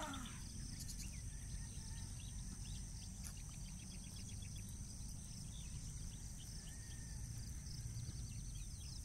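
Outdoor field ambience: birds chirping and calling in short repeated notes over a steady high-pitched insect drone, with a low steady rumble underneath.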